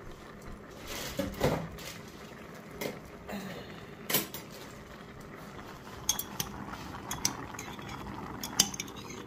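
Metal ladle clinking against a stainless steel cooking pot as the vegetables and greens are stirred: a scatter of short sharp clinks, the sharpest near the end. Underneath is the steady low hiss of the pot simmering.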